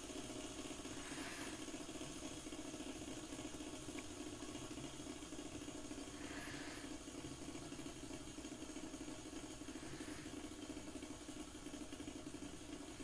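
Fidget spinner's ball bearing whirring steadily as the spinner runs on, spinning flat on a wooden tabletop.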